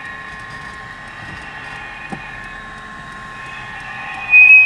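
A steady mechanical drone with several fixed high tones, then a sudden very loud, high-pitched shriek of about two-thirds of a second near the end.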